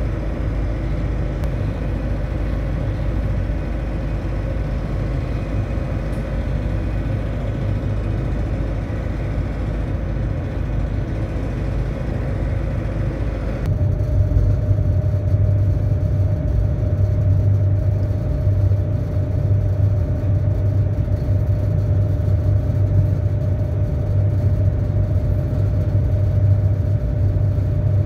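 Steady engine drone with a constant hum over a low rumble. About halfway through, the hum steps slightly higher in pitch and the drone gets a little louder.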